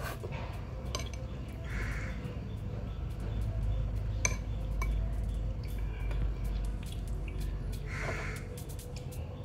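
Metal spoon clinking and scraping against a ceramic soup bowl, a few sharp clinks spread through. Two short slurps of noodle soup come about two seconds in and again near the end.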